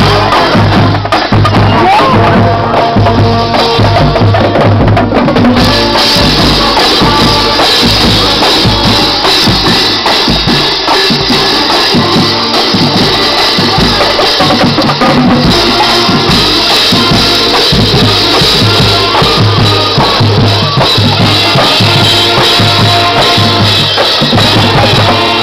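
School marching band playing loudly, with bass drum and snare drums keeping a steady beat under the horns.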